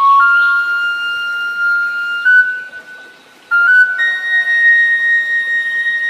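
Sundanese suling (bamboo flute) playing a slow melody of long held notes that step between a few pitches. It breaks off briefly near the middle, then carries on with a higher held note.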